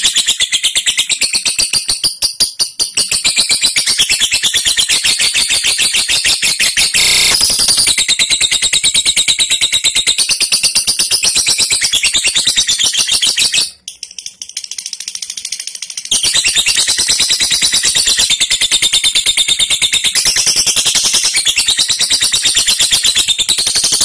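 Fischer's lovebird giving its long 'ngekek' chatter: a rapid, high-pitched, unbroken run of sharp notes. It breaks off for about two seconds just past the middle, then starts again.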